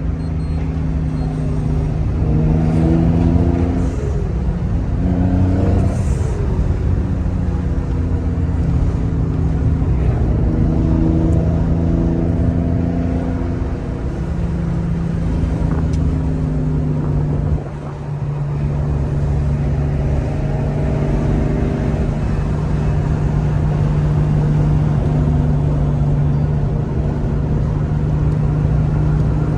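Twin-turbocharged Infiniti G35's V6 engine on a drive, running at about 7 psi of boost. Its pitch rises and falls as it pulls through the revs early on, dips briefly about 18 seconds in, then holds steady at a cruise.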